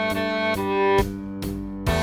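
Cello melody played at half speed, with held notes changing about every half second over a steady beat about twice a second.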